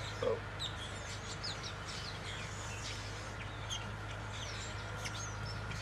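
Small birds chirping, with short high calls scattered throughout, over a steady low hum.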